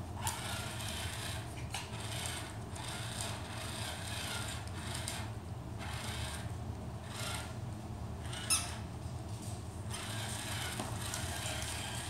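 A battery-powered walking plush toy dog on a corded remote, its motor and gears whirring in stretches that start and stop as the button is pressed, its feet scuffing on the hardwood floor. A brief high squeak about eight and a half seconds in.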